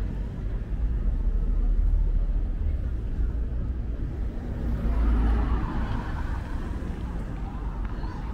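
City street traffic: a steady low rumble of vehicle engines, with a vehicle passing close by about five seconds in.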